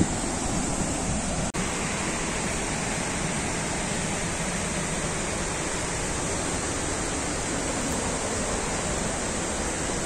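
Steady rush of falling water from a large waterfall and the river rapids below it, with a brief dropout about one and a half seconds in.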